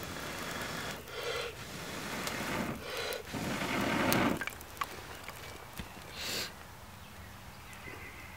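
Frying pan of sliced potatoes and Brussels sprouts sizzling over hot coals, surging in a few noisy bursts as broccoli florets are dropped in, the loudest about three and a half seconds in. A few light clicks follow later.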